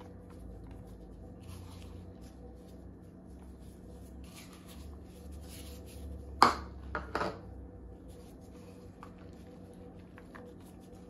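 Shredded cheese being sprinkled by gloved hands from a small bowl onto nachos in a baking dish: faint soft rustling, with one sharp knock a little past six seconds and two lighter clacks just after, as the bowl taps against the dish. A faint steady hum runs underneath.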